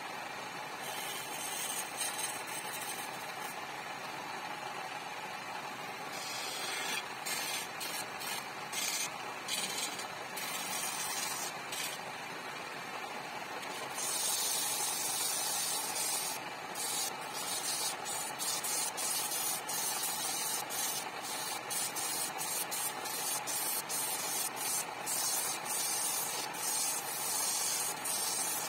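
Wood lathe running steadily while a turning chisel cuts into the spinning wooden sofa leg, in a series of short hissing, scraping strokes. About halfway through, the cutting hiss grows louder and more continuous.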